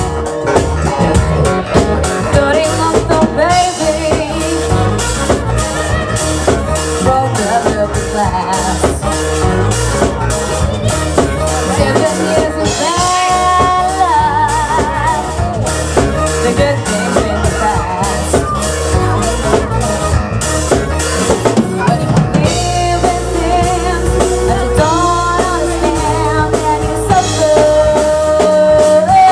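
Live band playing amplified: drum kit with a steady beat and rimshots, electric bass guitar, and singing with held, wavering notes.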